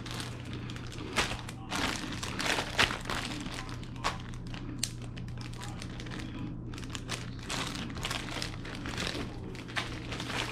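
Plastic bags crinkling and rustling as they are handled, with irregular crackles and a few sharper clicks, over a steady low hum.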